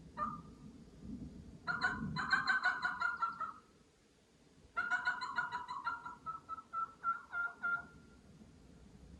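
Wild Merriam's turkey calling: a short note at the start, then two long runs of rapid rattling notes. The second run slows into separate, evenly spaced notes near the end.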